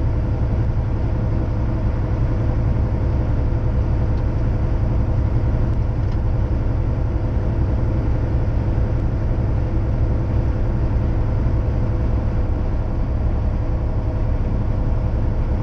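Semi truck's diesel engine and tyres at steady highway cruising speed, heard from inside the cab: an unchanging low drone with a faint steady whine above it.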